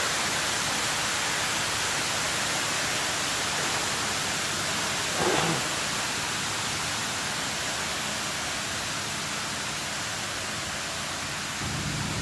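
Water falling over a small park water feature, a steady, even splashing. A short pitched sound rises and falls about five seconds in.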